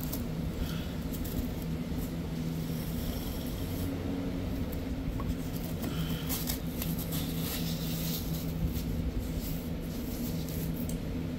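A knife is drawn through fiberglass ductboard and the cut strip is pulled away, making scattered short scratchy rasps. A steady low machine hum runs underneath.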